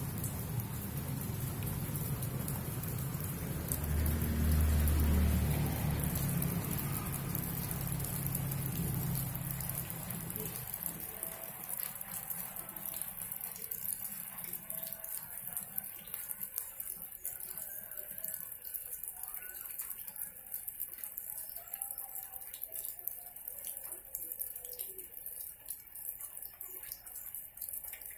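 Light rain pattering steadily, with a low rumble in the first ten seconds that then fades away.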